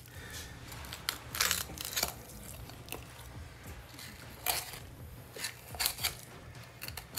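A thin, flexible knife cutting a fillet off a large unicornfish along the backbone and over the rib cage: a string of irregular crunching and scraping strokes.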